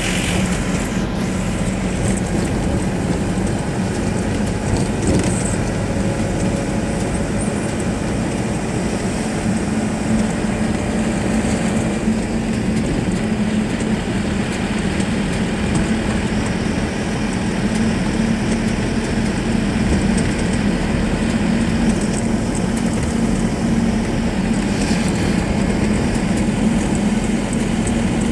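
Engine and road noise of a moving car, heard from inside the cabin: a steady drone with a low hum that rises slightly in pitch partway through.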